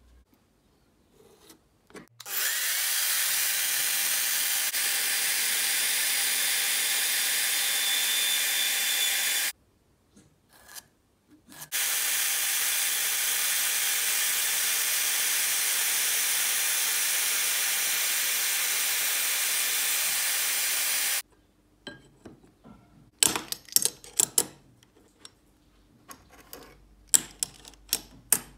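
Scroll saw cutting through aluminium plate: a steady, high-pitched cutting noise in two long stretches, each starting and stopping abruptly. Near the end, a run of sharp clicks and taps as steel hinges are set down on the aluminium plates.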